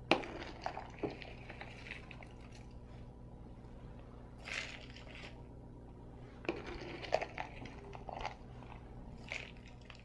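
Golden Brands 464 soy wax flakes poured into a clear plastic container, rustling and pattering in several short bursts, with a light knock at the start.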